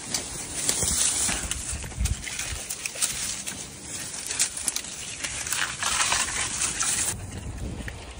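Dry grass and reed stalks crackling and rustling, with many small clicks and scrapes, as a dog carries a long stick through them. The sound turns quieter about a second before the end.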